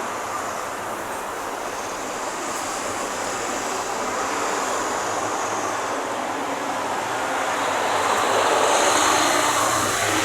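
Ambulance driving off, a steady rush of engine and road noise that grows louder over the last few seconds.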